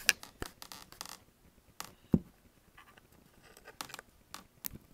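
Handling noise: several light, scattered clicks and scrapes over a quiet background, the loudest about two seconds in.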